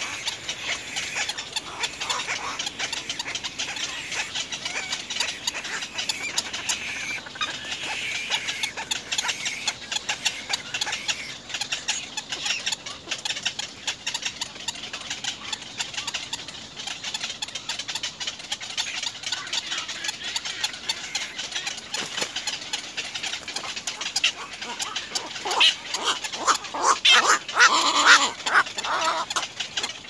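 Birds calling: a steady run of rapid clicking and chattering, with a louder burst of repeated calls near the end.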